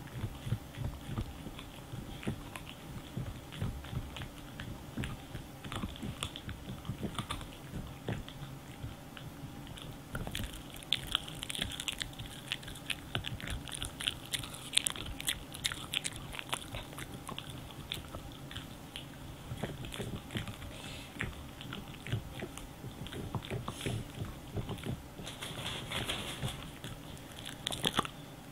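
French bulldog gnawing a hard cow-stick chew: a long run of irregular bites and crunches, busiest about a third of the way in and again near the end.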